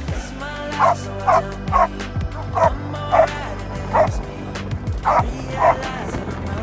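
A dog barking in a run of about nine short, sharp barks, roughly two a second, over background music.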